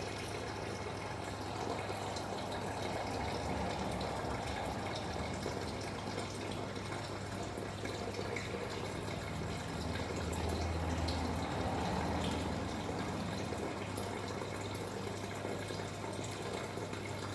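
Steady trickling, running water over a low steady hum, swelling slightly a couple of times.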